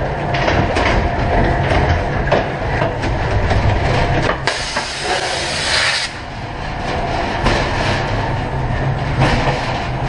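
Ghost train car rumbling and clattering along its track, with a loud hiss lasting about a second and a half around the middle.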